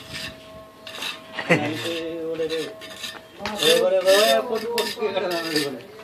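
Hard clinks and knocks of roofing pieces being handled and passed up onto a scaffold plank. Long, wavering vocal calls sound over them, about a quarter of the way in and again through the middle.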